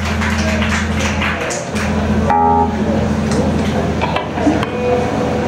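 Electric guitar and bass amplifiers sounding between songs: a steady low hum rings on, fading about two seconds in, when a single guitar note or chord is struck.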